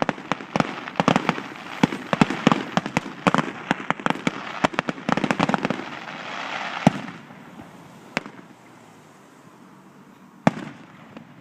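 Fireworks going off: a rapid string of sharp pops and bangs for about seven seconds, with a hissing wash building near the end of it, then a few single bangs spaced out, the loudest about ten and a half seconds in.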